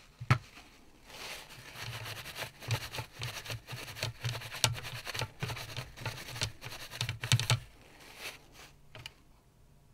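Paper tissue rubbed and dabbed over a circuit board to dry it, a scratchy rustling with many small irregular taps as it catches on the components. It stops about three-quarters of the way in, leaving a couple of light taps.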